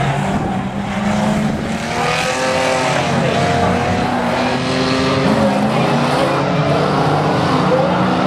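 Several racing car engines running hard and revving, their pitches overlapping and rising and falling as the cars go round the track.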